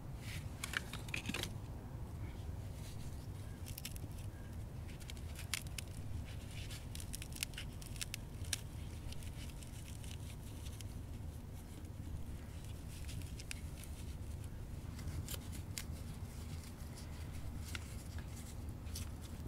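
Irregular small scrapes and clicks of hand work: a knife shaving beeswax into a small clay pot, then fingers working cattail fluff around a stick. A low steady rumble lies underneath.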